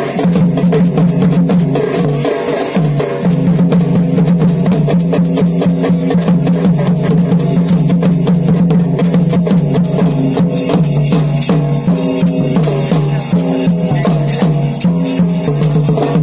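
Chhau dance accompaniment music: drums beaten in a fast, dense rhythm over a continuous held melody.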